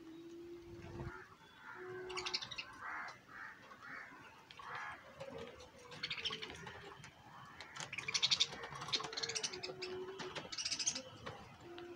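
Birds chirping and calling, with several bursts of rapid trilling.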